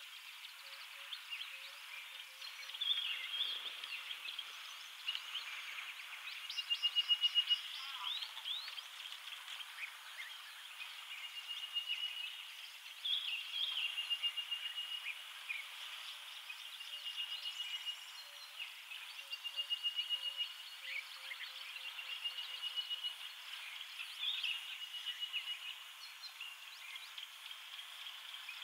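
Birds calling: a short, level trill about a second long, repeated every couple of seconds, among scattered chirps and whistles.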